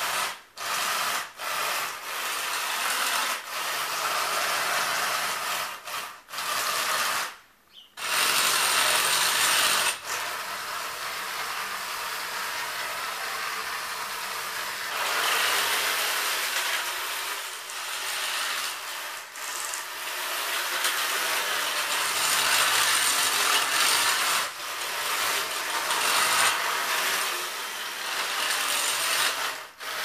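Homemade RC tracked vehicle driving on a tile floor: its electric drive motors and tracks give a rough, grinding clatter. It starts in a few short bursts, then runs almost continuously, with a brief stop about seven and a half seconds in.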